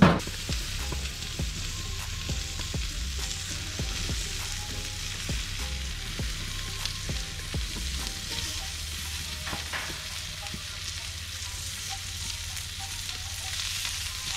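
Skin-on barracuda fillets with butter and hot dogs sizzling on a gas grill, a steady frying hiss with small crackles. A sharp clunk right at the start comes from the stainless grill lid being handled.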